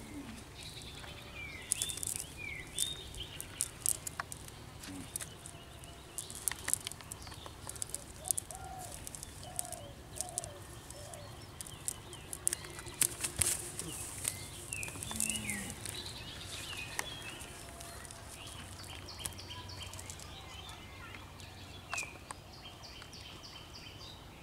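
Rustling and clicking as a fish is picked out of a cast net by hand, with birds chirping now and then and a run of short, even chirps near the end.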